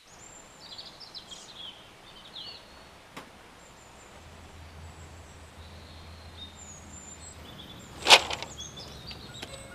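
Small birds chirping in the open air, with a faint click about three seconds in and one sharp knock about eight seconds in, the loudest sound here.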